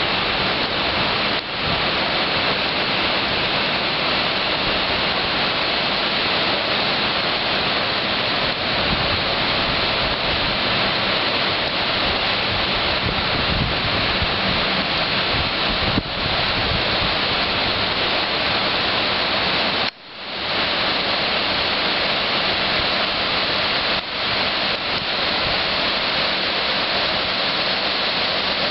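Swollen, muddy river in flood rushing past, a steady wash of fast-moving water. The sound drops out briefly about twenty seconds in.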